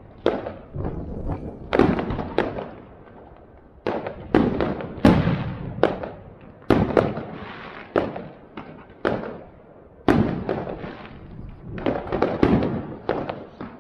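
Aerial fireworks shells bursting overhead: an irregular string of a dozen or more sharp bangs, each trailing off in a rolling echo.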